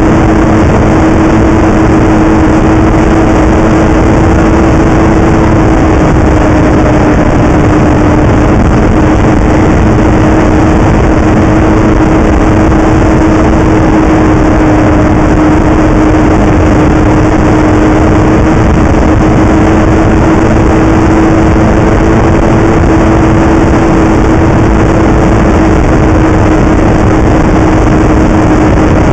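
Snowmobile engine running at a steady cruising speed, loud and even, its pitch drifting only slightly up and down, over a constant rushing hiss.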